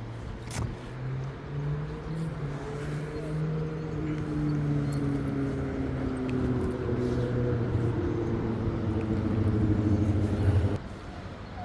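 A motor vehicle's engine running with a steady low hum, growing gradually louder, then cutting off abruptly near the end.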